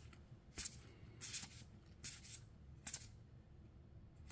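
Trading cards being slid one past another while flipping through a freshly opened booster pack: a series of short, soft swishes of card stock rubbing on card stock.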